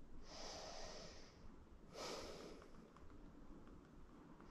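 Faint breathing: two long hissing breaths, each about a second long, the second coming about two seconds in.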